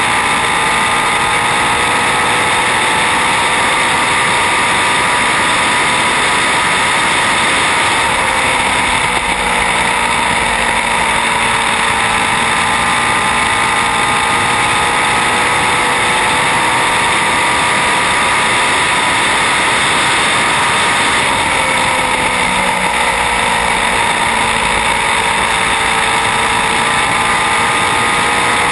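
Indy Lights race car's 3.5-litre Infiniti V8 running continuously at high revs, its pitch sagging slightly twice and climbing back.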